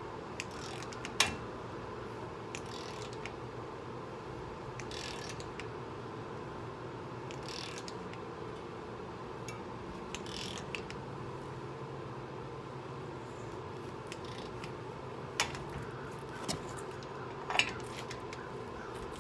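A long click-type torque wrench ratcheting on a 36 mm socket over repeated strokes while tightening a Ford F-150's front wheel-bearing hub nut, with a sharp click about a second in and two more near the end. The wrench is set to about 147.5 ft-lb, half of the 295 ft-lb spec, so it is clicked off twice.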